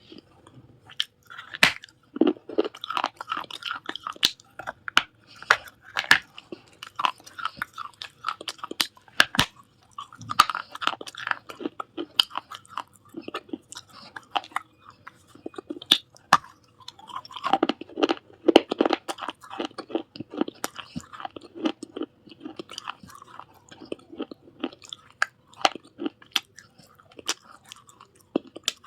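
Pieces of a baked clay surahi being bitten and chewed close to the microphone: sharp cracks and bursts of gritty crunching, coming in clusters with short pauses between.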